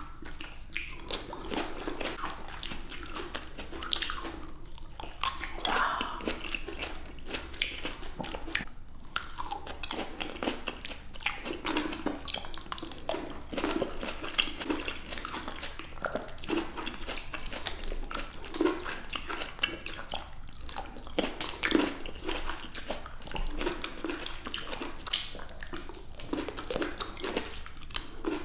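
Two people biting and chewing fresh red and green grapes close to the microphone: a steady run of juicy, crunchy bites and wet chewing with many small sharp clicks.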